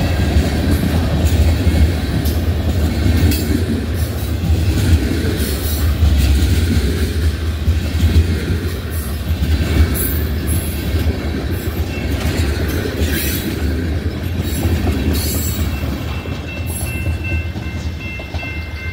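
Freight train cars, boxcars and tank cars, rolling past at close range: a heavy steady rumble with the clack of steel wheels over rail joints, easing off near the end as the cars move away. A thin, steady high tone comes in near the end.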